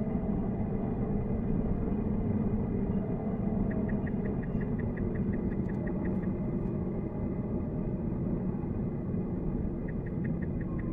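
Steady low road rumble inside a Tesla Cybertruck's cabin, sped up four times. Twice, about four seconds in and again near the end, a run of even ticks at five or six a second comes in: the turn-signal indicator, sped up.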